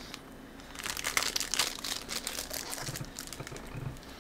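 Plastic snack wrapper crinkling as it is handled, a dense run of irregular crackles starting about a second in and fading out after about two and a half seconds.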